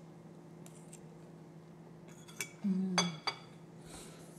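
A metal fork clinking against a plate a few times, each clink ringing briefly; three sharp clinks come close together between about two and a half and three and a half seconds in.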